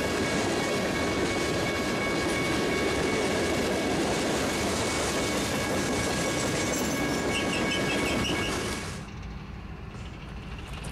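Train rolling past: a steady rumble of wheels on rail with a few faint steady high tones over it. It cuts off suddenly about nine seconds in.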